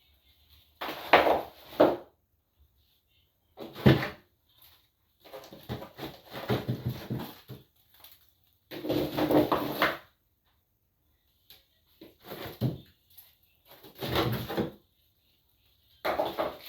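Containers, shelves and drawers of a refrigerator being handled, knocking and clattering in short separate bursts with quiet gaps between them.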